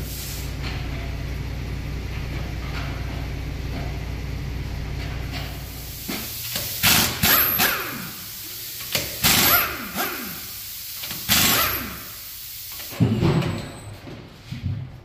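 A steady low machine hum, then a pneumatic impact wrench working the lug nuts on a dually pickup's wheel and spacer in a series of short bursts, each dropping in pitch as it winds down.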